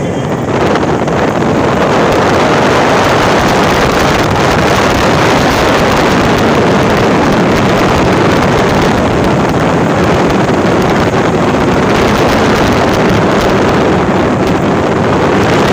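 Loud, steady rush of wind over the microphone of a phone carried on a moving motorcycle, with the motorcycle's engine running under it.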